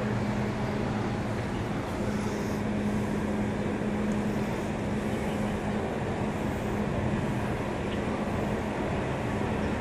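Steady hum of the AIDAblu cruise ship's deck machinery and ventilation fans: a constant drone with an even hiss beneath it.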